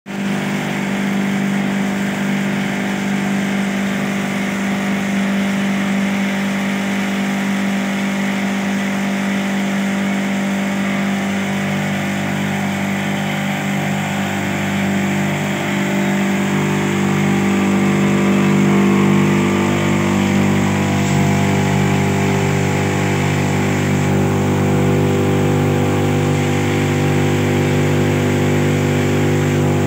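A pipe screw conveyor and the grinding mill it feeds running steadily, a continuous machine hum with a strong low drone and a rushing noise above it, growing a little louder about halfway through.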